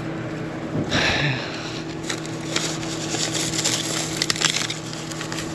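Dry corn husks and leaves being torn, snapped and crackled as an ear of corn is pulled and shucked by hand, with a tearing burst about a second in. A steady low hum runs underneath.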